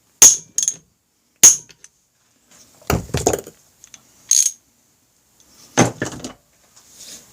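Hammer striking metal: three sharp metallic whacks in the first second and a half, used to seat or tighten a freshly Loctited bolt on the gear train. After that come a couple of duller clatters and one sharp clink of metal tools and parts being handled.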